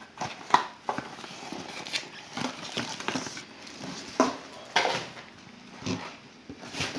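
Scattered light clicks, taps and knocks, about a dozen at irregular intervals, with faint rustling between them: unboxed accessories and packaging being picked up and set down.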